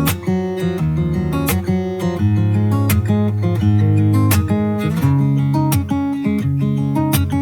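Background music: the instrumental intro of a pop song, with strummed acoustic guitar over a bass line and sharp percussive hits.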